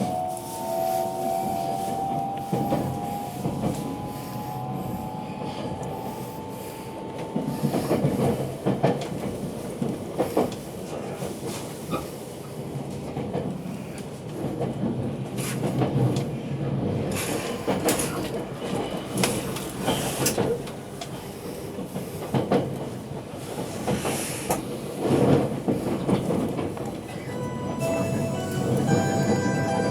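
683 series electric train heard from inside a passenger car, pulling away: the traction motors give a whine that slowly rises in pitch for the first several seconds, then the wheels rumble and click over the rail joints. Near the end an on-board chime melody begins.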